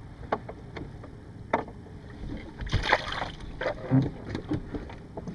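Water splashing, with scattered sharp knocks and taps and a louder rush of splashing about three seconds in.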